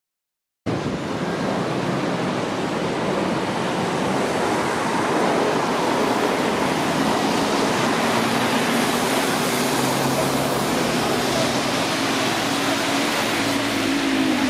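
Steady outdoor rushing background noise beside railway tracks, starting suddenly after a split second of silence, with a faint low hum joining in about halfway through.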